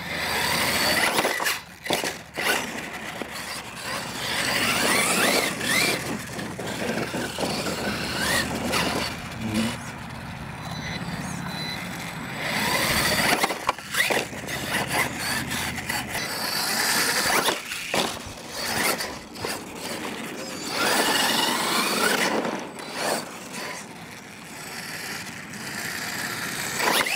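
Losi LMT radio-controlled monster truck on 2S power driving hard on dirt: its brushless electric motor and drivetrain whine, rising and falling as the throttle is worked, over tyres scrabbling on dirt. Several sharp knocks come from landings and the truck hitting the ground.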